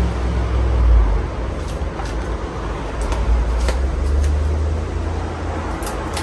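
A 50-inch Casablanca Panama ceiling fan running, heard as a low, uneven rumble and a steady hiss, with a few faint clicks.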